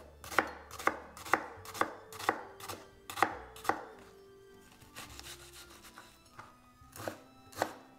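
Chef's knife slicing an onion and striking a plastic cutting board: sharp taps about two a second, a pause of a few seconds in the middle, then a few more taps near the end.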